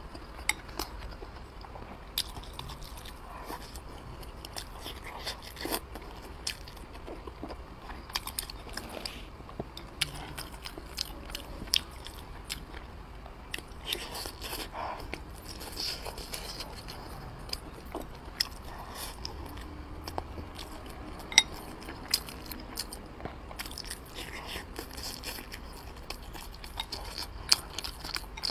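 Close-miked chewing and wet mouth sounds of someone eating soft braised wrapped pork rolls with rice, with many short sharp clicks and smacks scattered through it, two of them louder in the later part.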